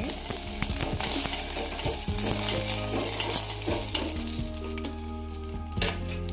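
Tempering of mustard seeds, crushed garlic, curry leaves and dried red chillies sizzling steadily in hot oil in a small vessel, frying toward light brown. A spoon stirring it clicks against the vessel, with a sharper clack near the end.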